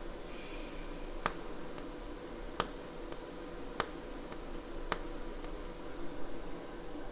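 TIG spot welds on steel plate from an ESAB Fabricator ET 410iP inverter in spot mode at about 150 A. Four times, a second or so apart, there is a sharp crack as the high-frequency start lights the arc, then a thin high whine from the arc for about half a second before it cuts off.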